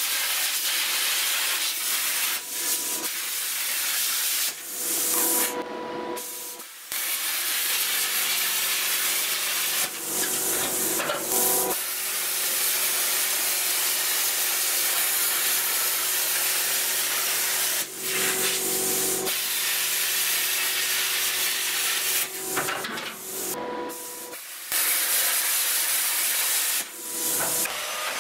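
Plasma cutter cutting steel plate: a loud, steady hiss of the air-plasma arc that breaks off briefly a few times between cuts.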